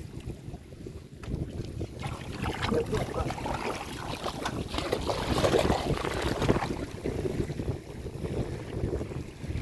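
Wind buffeting the microphone as a steady low rumble, with a louder stretch of rough rushing noise from about two seconds in until about seven seconds in.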